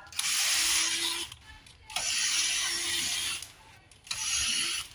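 Small electric screwdriver backing out the screws of a projector's VGA port. It runs three times, about a second or a little more each time, with short pauses between the runs.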